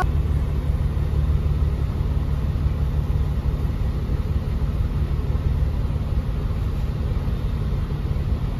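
City bus engine running with a steady low rumble, heard from inside the passenger cabin.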